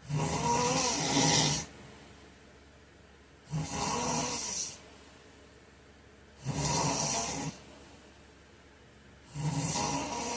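A man snoring in his sleep: four loud snores about three seconds apart, each lasting a second or so, with quiet breaths between them.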